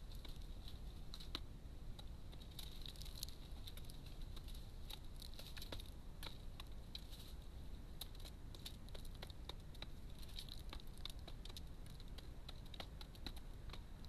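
Wood pigeons pecking seed from a feeding tray: irregular sharp taps and clicks, several a second.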